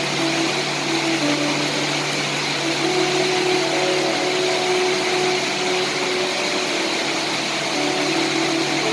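Steady rain hiss, with a few low steady tones under it that come and go every few seconds.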